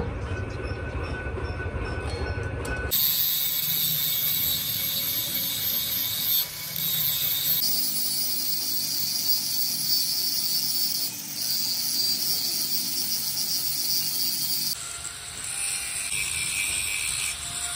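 Handheld electric angle grinder with an abrasive disc grinding down the steel of a truck front axle, a steady high grinding hiss that starts abruptly about three seconds in. A lower rumble of other workshop work comes before it.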